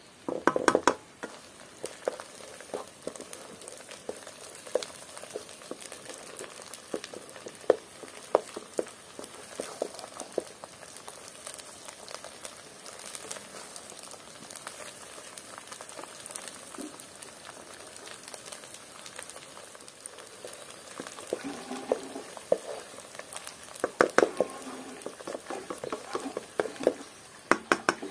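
Finely chopped herbs sizzling in oil in a non-stick frying pan, with a wooden spatula scraping and knocking against the pan as they are stirred. The knocks come thicker in the last few seconds.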